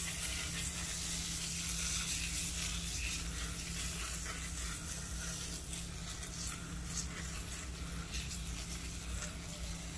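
Steady hiss of a fine water mist being sprayed over dry leaves on a worm bin's bedding, wetting it down.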